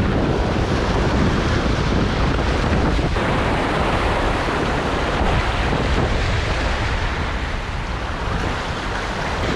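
Sea waves surging and breaking against the boulders of a rock jetty, a steady rushing wash, with wind buffeting the microphone.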